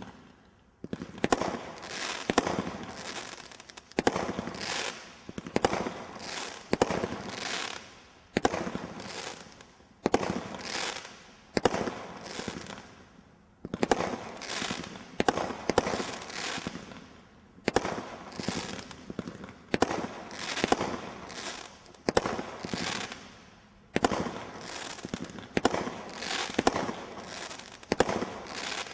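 Ninjas Power 19-shot combination roman candle barrage firing. A sharp shot goes off about every second and a half, each followed by a hiss that fades over about a second.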